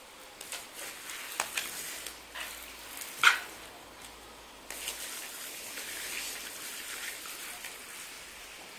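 Garden sprinkler spray hissing and pattering like rain, while a dog snaps at the water jets with several sharp clicks. One short, loud dog bark about three seconds in.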